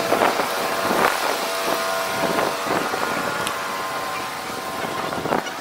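A motor running steadily, a hum made of several steady tones, with some wind noise on the microphone.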